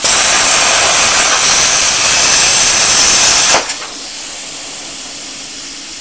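Plasma cutter arc cutting thin steel plate with a loud, steady hiss. About three and a half seconds in the arc suddenly cuts out, leaving a softer steady hiss, although the trigger is still held. The torch cuts out over and over, which the owner puts down to a faulty torch trigger switch.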